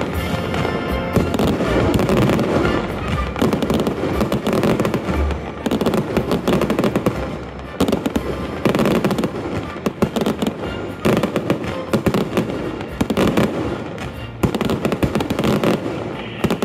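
Fireworks display: aerial shells bursting in a continuous barrage of bangs and dense crackling, surging and easing every few seconds.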